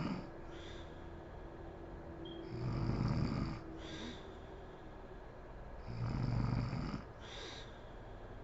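A sleeping woman snoring, with a loud snore about every three and a half seconds. Each snore is followed by a short breathy breath.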